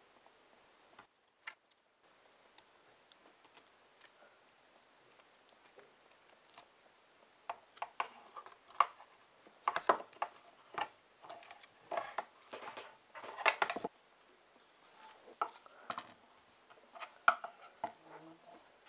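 Light clicks and rustling of wooden chopsticks and rubber bands being handled, in irregular clusters that start about halfway through.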